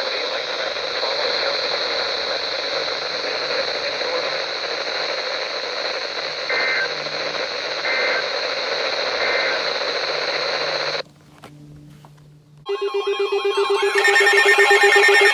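Weather-radio static hiss with three faint, short Emergency Alert System header data bursts about halfway through. After a brief dropout, a loud buzzy alert tone with a warbling, siren-like pitch begins near the end.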